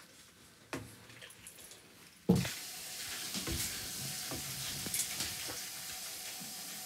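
Kitchen sizzling: after near-quiet room tone with a single click, a knock about two seconds in brings a steady sizzling hiss, with light clicks and knocks of kitchen work over it.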